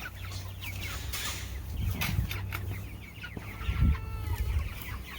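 Cornish Cross broiler chickens clucking and calling in scattered short bursts.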